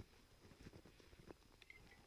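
Near silence, with a few faint, scattered knocks and rustles.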